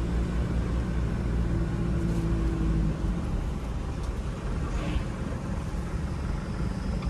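A 2002 Toyota Qualis being driven, with engine and road noise. A steady engine hum gives way to an even rumble about three seconds in.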